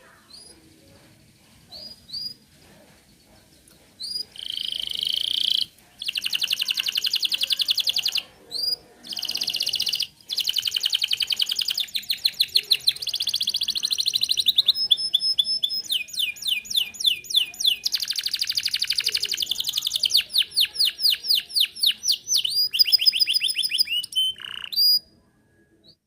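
Domestic canary singing: a few short chirps, then from about four seconds in a long, almost unbroken song of rapid trills and rolling phrases that changes pattern every second or two. It stops about a second before the end.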